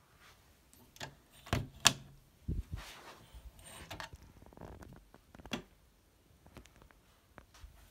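A door being opened: the lever handle and latch clicking sharply, then knocks and rustles as the door swings and is handled, with one more knock about five and a half seconds in.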